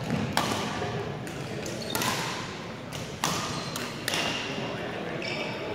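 Badminton rally in a gym hall: four sharp smacks of rackets striking the shuttlecock, each with a short echo off the hall, over a background of gym chatter.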